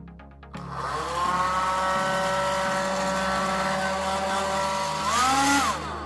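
Arzum hair dryer switched on about half a second in: its motor whine settles to a steady pitch over the rush of air. The motor is running noisily, a noise the repairer puts down to the rotor expanding from heat and rubbing inside the motor. Just after five seconds the pitch rises briefly, then falls quickly as the dryer is switched off and winds down.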